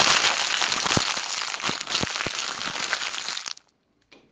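Dense crackling hiss with scattered sharp clicks, lasting about three and a half seconds and cutting off suddenly.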